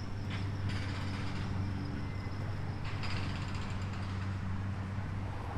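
An engine running steadily with a low hum, with a few light clicks and knocks on top.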